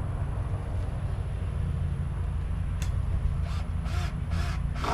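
A steady low rumble, with one sharp click about three seconds in and a few faint short chirps near the end.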